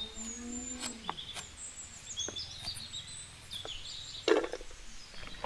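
Outdoor ambience with small birds chirping and whistling, a few sharp clicks, and one short, loud noise about four seconds in.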